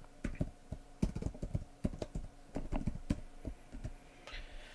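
Typing on a computer keyboard: irregular keystroke clicks in short runs, thinning out near the end.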